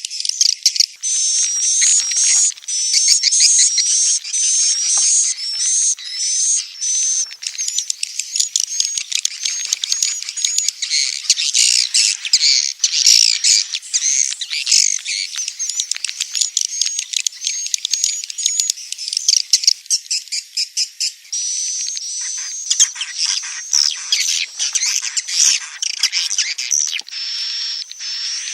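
Swiftlets twittering: many rapid, overlapping high-pitched chirps, as in a swiftlet-house lure call used to draw wild swiftlets in to nest.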